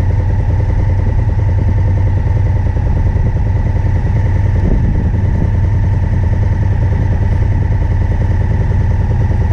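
Yamaha Ténéré adventure motorcycle's parallel-twin engine idling steadily while stopped, heard close up from the rider's helmet microphone.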